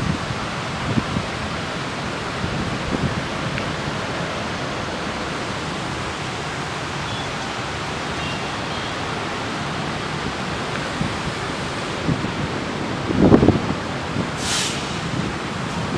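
Steady hiss of wind on the microphone, with a few low buffets thumping about three seconds before the end.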